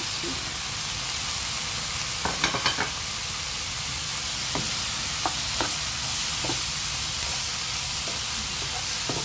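Mixed vegetables sizzling in oil in a frying pan while a wooden spatula stirs them. A quick run of spatula knocks against the pan comes about two and a half seconds in, then a few single taps.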